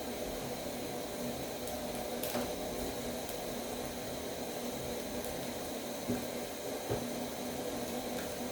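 Steady low hum and hiss with a few faint clicks, about two, six and seven seconds in.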